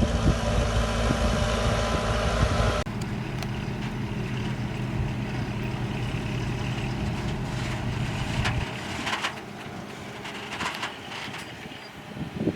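Heavy earthmoving machinery's diesel engine running, loud with a few knocks at first. An abrupt cut about three seconds in switches to a quieter steady engine sound. Near the end the low rumble drops away and a few metal clanks are heard.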